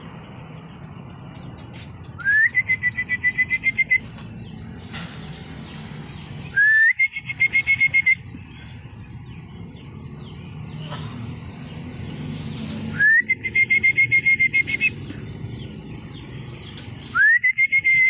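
A loud, high whistling call repeated four times. Each one swoops quickly up and then holds a steady, rapidly pulsing tone for about a second and a half.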